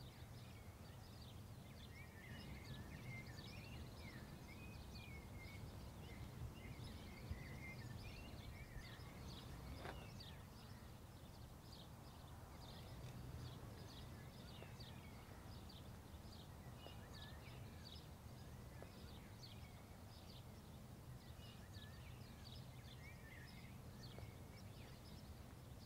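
Faint outdoor ambience: small birds chirping and twittering throughout, over a low steady rumble.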